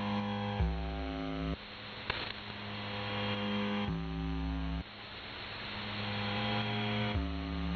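UVB-76 ("The Buzzer") received on 4625 kHz shortwave: its harsh buzz tone sounding three times, each buzz about a second long and about three seconds apart. Between the buzzes the station's steady hum and radio static carry on, and there is a brief click in the middle.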